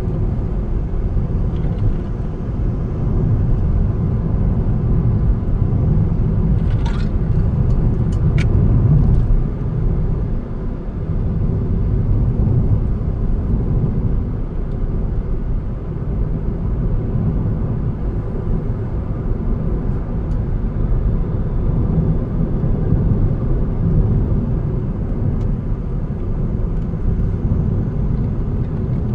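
A car driving along a road, heard from inside: a steady low rumble of engine and tyres, with two brief faint clicks about seven and eight seconds in.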